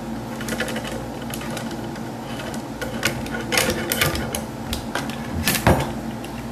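A ramrod sliding and clicking inside a Sharps rifle barrel as it is run down to push a seated bullet back out of the chamber, with a few sharper knocks in the second half.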